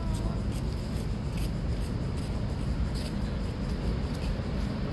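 Steady low rumbling noise, with light rubbing and ticking sounds scattered through it.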